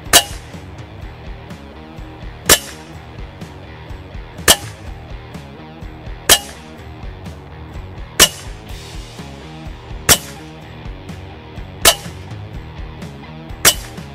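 Hatsan Galatian PCP air rifle firing repeated shots: eight sharp cracks about two seconds apart, over background music.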